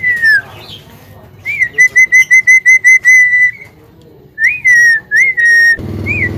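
Javan myna whistling: a rising note followed by a quick run of short whistles at one even pitch, about five a second, then after a pause a few more whistled notes and another run. A low hum comes in near the end.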